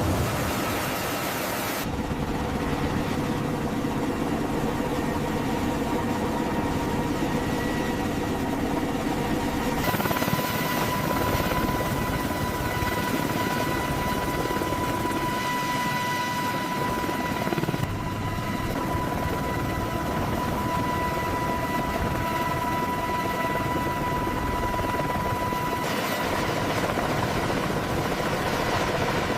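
Heavy helicopter running after start-up: a steady dense rotor and engine noise, with a high steady turbine whine through the middle. The sound changes abruptly a couple of seconds in, about a third of the way through, and again near the end.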